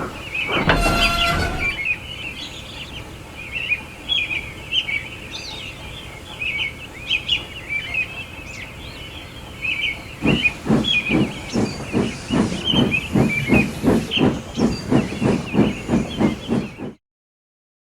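Steam locomotive: a short steam whistle blast over a hiss of steam about half a second in, with birds chirping throughout, then the engine puffing in regular exhaust beats about three a second from about ten seconds in, cutting off abruptly about a second before the end.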